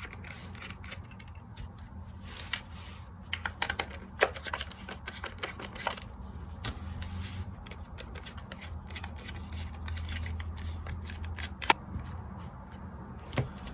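Precision screwdriver working tri-point screws in a small plastic night-light housing: irregular small clicks and taps of the metal bit and plastic, with one sharper click about two seconds before the end, over a steady low hum.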